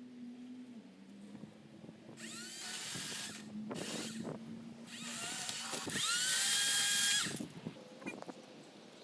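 Chainsaw revved up to speed twice while cutting a pine limb: a shorter burst about two seconds in and a longer, louder one around five seconds, each starting with a rising whine. A low steady hum sits underneath between the bursts.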